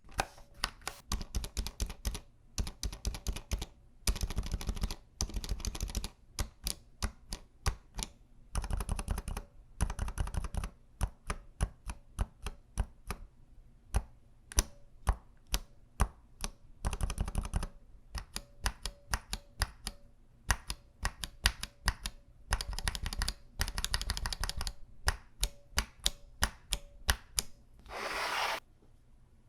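Typing on a mechanical keyboard fitted with stock FEKER Aphonia silent switches: muted keystrokes that come singly and in fast runs of a second or so. A short scraping noise comes near the end.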